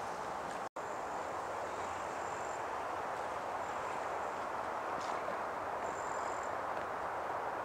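Steady outdoor rushing noise, with faint high-pitched tones coming and going; the sound drops out completely for an instant under a second in.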